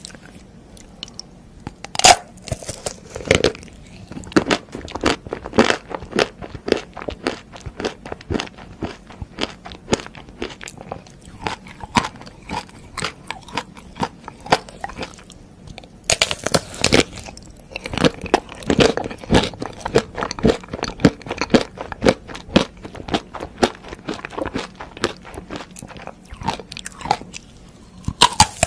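Biting into and chewing a chocolate-coated ice cream bar with a crisp, nut-studded shell: sharp cracks as the coating breaks, then many small crunches. The louder bites come about two seconds in, around sixteen seconds, and again at the end.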